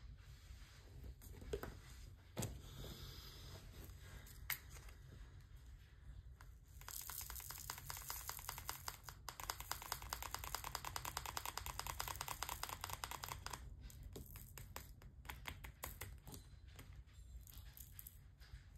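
Small plastic diamond-painting drills rattling in a plastic tray and being poured into a little plastic storage pot: a dense run of tiny rapid clicks lasting several seconds in the middle. Scattered light taps and clicks of the drill pen and plastic pots come before and after it.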